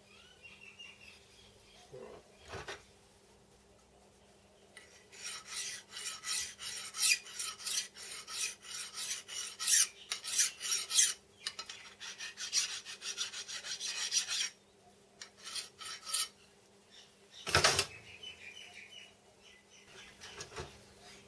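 Rapid, repeated rasping strokes of metal on metal as the steel gib and dovetail slideway of a compound slide are worked by hand to a fit, with two short pauses. A single sharp knock comes near the end.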